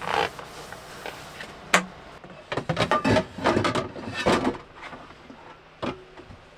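Dishes being dried and put away in an overhead wooden cabinet: a sharp knock, then a busy run of clatter and knocks of plates and cabinet, and another knock near the end.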